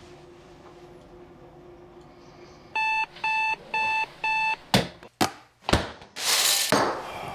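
Digital alarm clock beeping four times, about two beeps a second, then stopping. Right after come a quick series of sharp knocks, the loudest sounds here, and a brief rush of noise.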